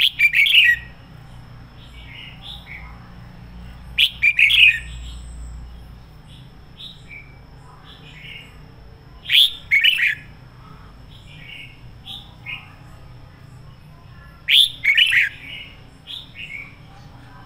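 Red-whiskered bulbul singing: four loud, short song phrases about every five seconds, with softer notes between them.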